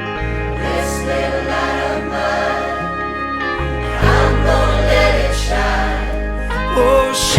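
Music: a choir singing a gospel-style tune over held bass notes.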